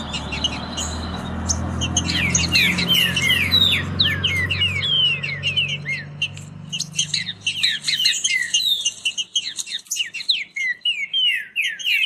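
Green-winged saltators (trinca-ferro) singing fast, overlapping songs of quick descending whistled notes. A low steady hum sits under the song for the first several seconds and fades out about eight seconds in.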